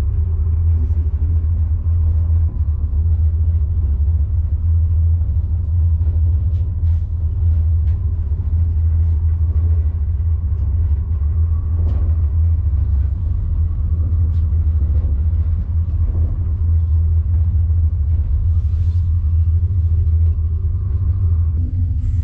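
Steady low rumble inside a moving cable car cabin, with a faint steady hum above it.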